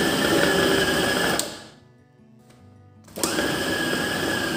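Westpoint food processor motor pulsed twice: it runs with a steady whine, stops about one and a half seconds in, and starts again about three seconds in. The two short bursts roughly chop minced chicken into a smooth chicken paste so that small chunks remain.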